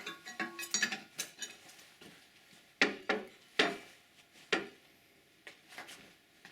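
Metal clinks and knocks of a spanner working on a steel coiled tubing connector as its bottom sub is backed off: a quick run of light clinks, then a few sharper, spaced-out clinks, with fainter ones near the end.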